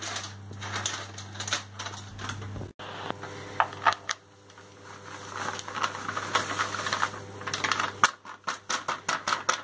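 Plastic inner bag of chocolate cake mix crinkling and rustling as the dry powder is shaken out into a plastic mixing bowl, a quick irregular run of small crackles and clicks.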